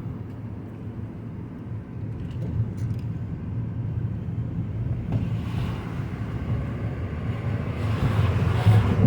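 2009 Mazda 5 being driven in third gear, heard from inside the cabin: steady engine and road rumble that grows louder over the last few seconds.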